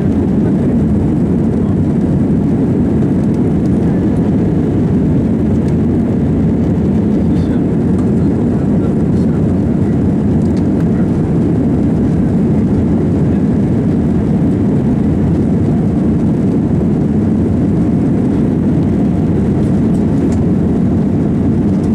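Jet airliner climbing out after takeoff, heard from inside the passenger cabin: a steady, even low rumble of engines and airflow with no breaks.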